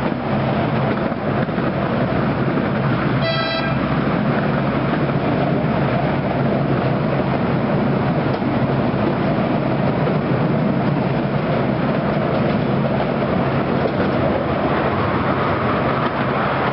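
Miniature ride-on train running steadily along its track, with one short, high toot of the train's horn about three seconds in.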